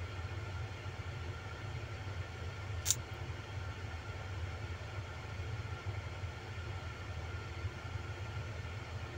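Steady low diesel rumble of heavy earthmoving machines, a Caterpillar D7R crawler bulldozer and an excavator, working at a distance. One sharp click about three seconds in.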